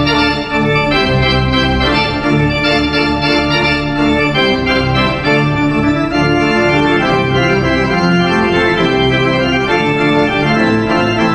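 Church organ playing full sustained chords over a bass line that shifts every second or so, with no break.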